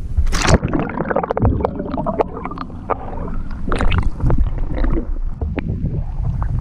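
Choppy water splashing and gurgling right at the microphone as a small sailboat moves along, with one sharp splash about half a second in and many small splashes after it, over a low wind rumble on the microphone.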